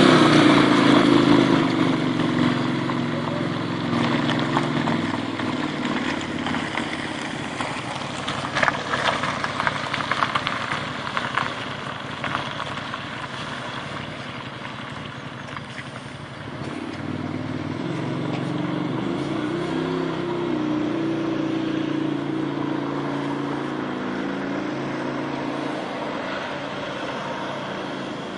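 Turbocharged Arctic Cat Wildcat UTV engine running. It is loudest at the start and drops off over the first couple of seconds, with a spell of sharp clicks and rattles in the middle. Later the pitch rises and falls as the engine revs, then it runs more steadily.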